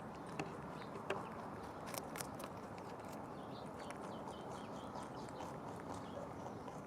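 Netherland Dwarf rabbit crunching a carrot: quick, irregular small crunches and clicks, a couple louder bites about one and two seconds in, over a steady background hiss.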